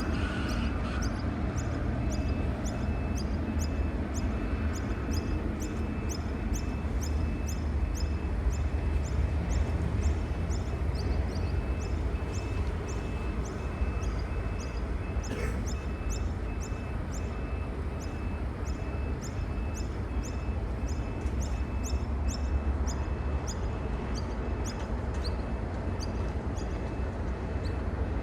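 Short high-pitched chirps repeating evenly, about two a second, over a steady low rumble.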